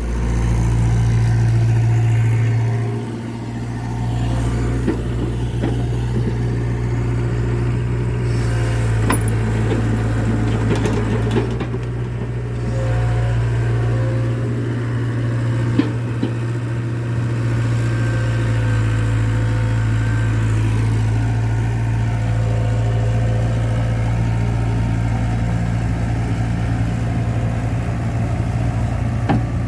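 Excavator's diesel engine running steadily, louder for the first few seconds, with a few faint knocks over it.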